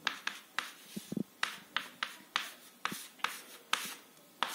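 Chalk writing on a board: a quick series of short taps and scratches, a few each second, as figures are chalked.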